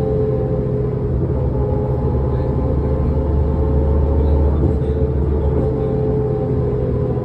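Diesel engine and drivetrain of a New Flyer D40LF transit bus running, heard from inside the passenger cabin: a steady low rumble that grows somewhat louder about halfway through, with a steady whine above it.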